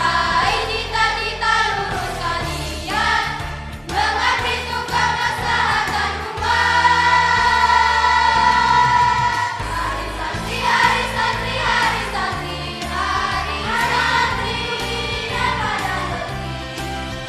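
Islamic boarding school student choir singing in several voices over steady low accompanying notes, holding one long chord about halfway through.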